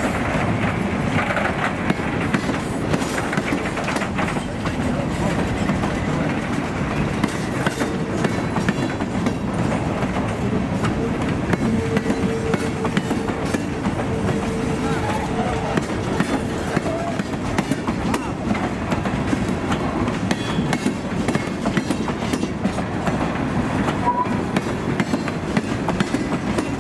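Steel gondola cars of a freight train rolling past, a steady rumble with the wheels clicking over the rail joints. A faint thin wheel squeal holds for several seconds in the middle.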